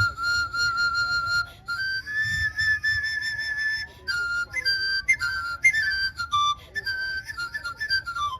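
Wot, the circular bamboo panpipe of northeastern Thailand, played solo with a clear whistle-like tone. Short repeated notes come first, then one long held higher note for about two seconds, then a run of quick short notes stepping up and down.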